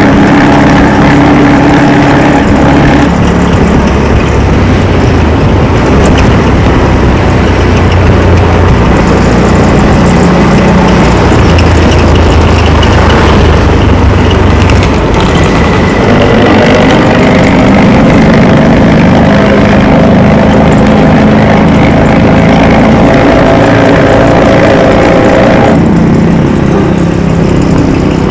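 Intercity bus with a modified 'ngorok' (snoring) exhaust, running loud with a deep rumble that never breaks. Its engine note shifts in pitch several times.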